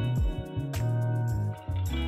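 Background music with sustained chords over a bass line and a steady beat.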